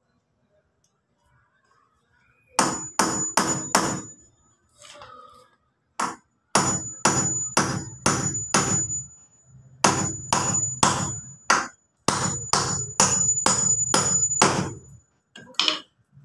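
Hammer driving nails into wooden boards: runs of quick blows, about three a second, in several bursts with short pauses, each strike carrying a high metallic ring.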